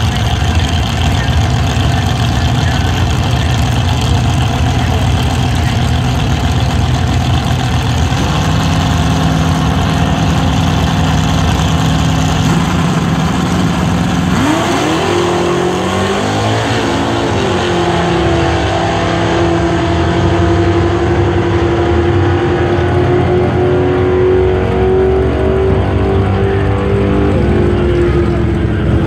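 Ford Mustang and Ford Torino drag cars idling and blipping their engines at the starting line. About halfway through they launch, with the engine pitch sweeping up and down through the gears, then holding a high, slightly rising note at full throttle as they run down the strip.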